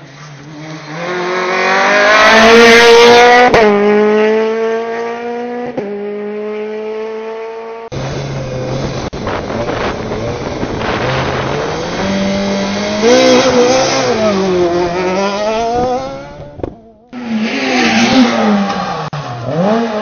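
Rally car engines at full throttle. One car accelerates hard with two upshifts a couple of seconds apart. Then engine revs rise and fall repeatedly, and after a short break a car slows for a corner and pulls away again.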